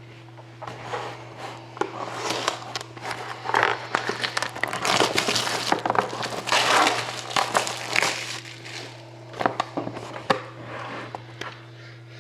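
Plastic shrink-wrap being pulled off a sealed box of trading cards, crinkling and crackling in irregular bursts over a steady low hum.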